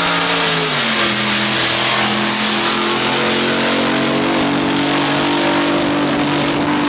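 Drag boat engines running loud and steady. The engine pitch drops about a second in and then holds, over a dense hiss.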